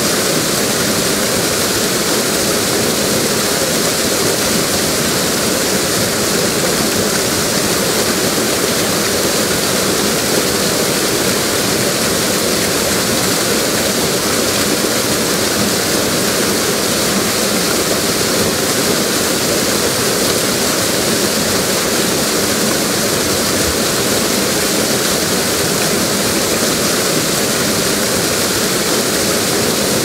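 River water flowing over a waterfall: a loud, steady, unbroken rush of water.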